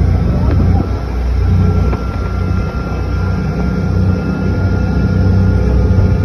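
An engine running under way: a steady low drone with a faint thin whine above it.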